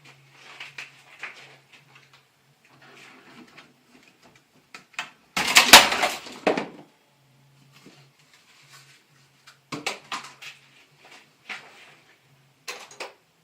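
Unpacking a miter saw from its box: scattered knocks, clicks and rattles of parts and packaging being handled, with one loud, noisy clatter lasting about a second and a half about five seconds in.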